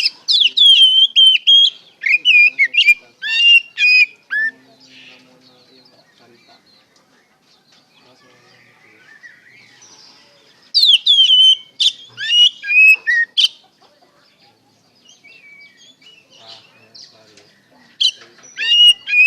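Oriental magpie-robin (kacer) singing loud, rapid whistled phrases with quick up-and-down glides, in three bouts: at the start, about eleven seconds in, and near the end.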